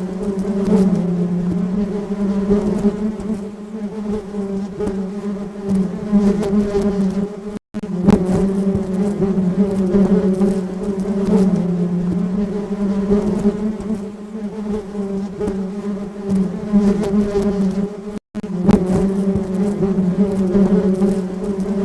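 Honeybee buzzing, a steady low drone that wavers slightly in pitch and loudness. It cuts out for an instant twice, about eight seconds in and again near eighteen seconds.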